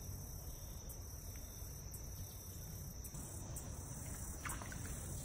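Steady high-pitched insect chorus, with a few faint short chirps about four and a half seconds in.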